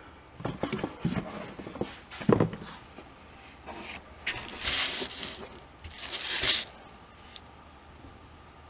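Handling sounds of a palm sander being moved by hand and set down on a wooden board: a few knocks in the first two seconds, the loudest about two seconds in, then two rustling scrapes around four to five and six to six and a half seconds in. The sander is not running.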